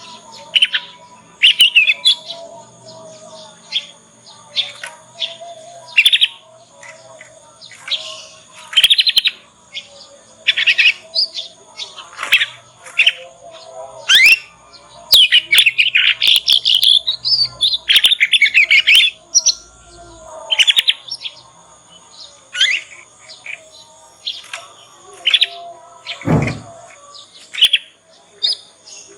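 Young canary practising its song: scattered short chirps and twittering phrases, with a longer rapid warbling run in the middle. Near the end there is one loud swoop falling steeply in pitch.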